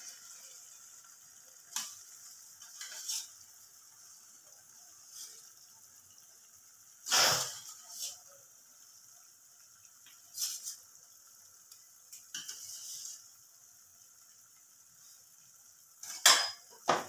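Steel spatula knocking and scraping against a metal kadai now and then, one loudest clack about halfway through, over a faint steady sizzle of mince frying in masala.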